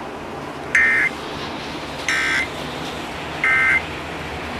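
Emergency Alert System end-of-message data tones: three short, identical buzzy bursts of digital code about 1.3 seconds apart over steady radio hiss. They signal that the alert has ended.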